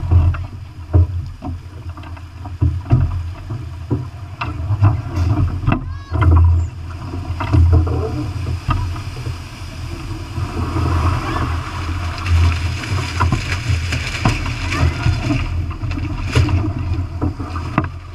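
Wind buffeting the microphone in gusts over water rushing and splashing along the hull of a sailing yacht in rough seas, with scattered sharp knocks. The rush of water grows louder about halfway through as the yacht heels and its lee rail dips into the waves.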